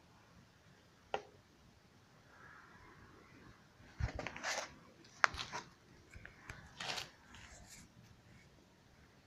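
Handling noise from a small plastic container being moved over a tub of water: a single sharp click about a second in, then a cluster of knocks and short rustles from about four to seven seconds in.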